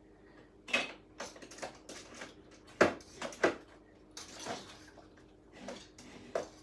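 Irregular light clicks and knocks, about a dozen, the sharpest about three seconds in, from small hard objects being handled.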